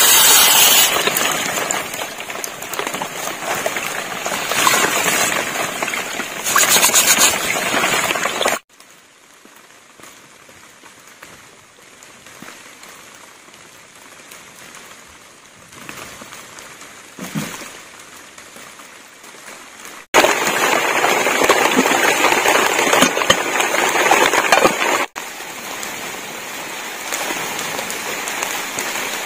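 Steady hiss of rain falling on leaves and a thatched roof. It is loud, turns much quieter in the middle, then loud again. In the first several seconds, rice is poured into a pot of water and washed by hand, with water and grains splashing.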